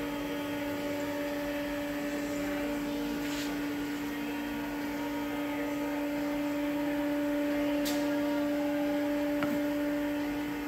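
Laska ME 500 ZN1X meat mixer's empty stainless-steel trough being power-tilted forward for emptying, its drive running with a steady hum, with a couple of faint ticks along the way.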